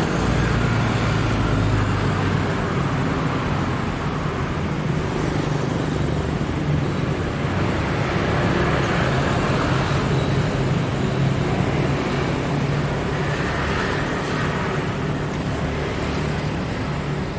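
Road traffic: vehicle engines running with a steady low hum under the rush of passing traffic.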